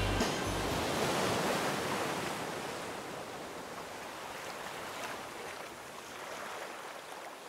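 Ocean surf washing, a steady wash of wave noise that slowly fades out.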